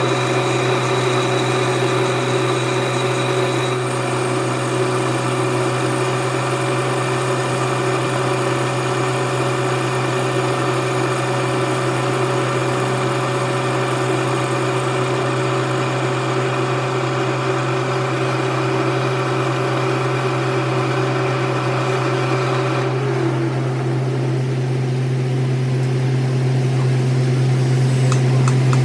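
Metal lathe running steadily, a constant low hum with several steady tones above it. A high tone stops about four seconds in, and much of the higher sound drops away about 23 seconds in.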